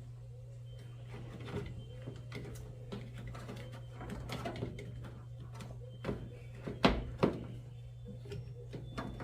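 Scattered clicks and knocks of a new drain pump and its parts being handled and fitted into a GE front-load washing machine, with two sharper knocks about seven seconds in, over a steady low hum.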